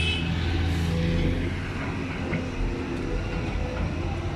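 Caterpillar 320D tracked excavator's diesel engine running steadily as the machine swings with its bucket raised.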